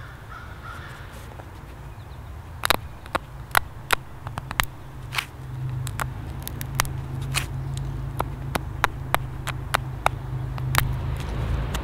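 Deer-antler pressure flaker working the edge of a small flint arrowhead blank: an irregular string of sharp clicks as tiny flakes snap off, coming thick from a couple of seconds in, over a low rumble.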